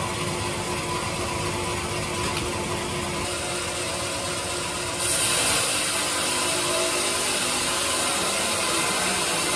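Band sawmill running with a steady mechanical hum, not yet in the teak log. About halfway through it becomes abruptly louder, with more high hiss.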